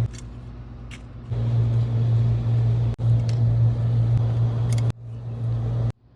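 Trane packaged air-conditioning unit running with a steady low electrical hum. The level shifts abruptly a few times and the hum stops near the end.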